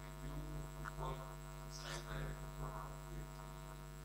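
Steady electrical mains hum on the recording, with a faint, distant voice now and then: an audience member asking a question away from the microphone.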